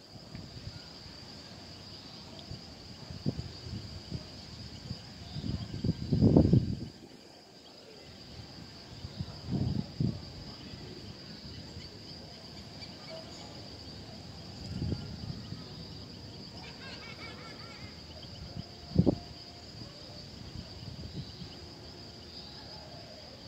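A steady high-pitched insect chorus, with several short low bursts of noise over it, the loudest about six seconds in and smaller ones near ten, fifteen and nineteen seconds.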